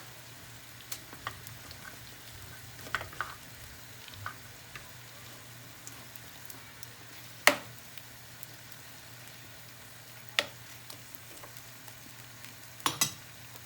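Calamari and fish pieces with onion frying in oil in a pan, sizzling gently over low heat. A few sharp knocks cut through, the loudest about seven seconds in and two close together near the end.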